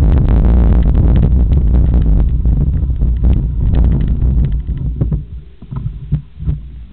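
Wind buffeting the microphone over the rattle of a mountain bike descending a loose stony track, a heavy low rumble full of sharp clicks and knocks from gravel and the bike. About four and a half seconds in the rumble drops away, leaving quieter scattered knocks and crunches of tyres on stones.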